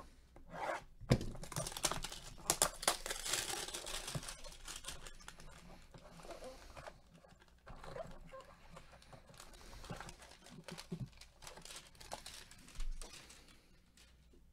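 Cellophane shrink-wrap on a trading card box being slit with a blade and torn off, with dense crinkling and crackling, busiest in the first few seconds. Then quieter cardboard handling as the box is opened and the cards are slid out.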